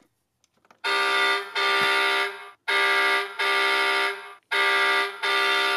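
Electronic truck-horn sound effect from the 2015 Hess Toy Fire Truck, really loud, starting about a second in. It sounds as three pairs of steady, same-pitched blasts, each pair a shorter blast followed by a longer one.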